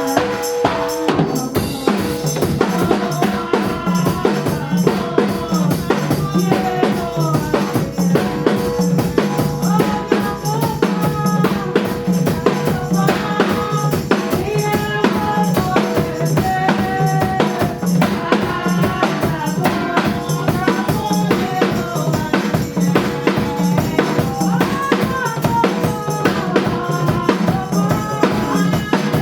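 Live gospel band music driven by a drum kit playing a steady, fast beat of bass drum, snare and rimshots, with pitched melody instruments over it.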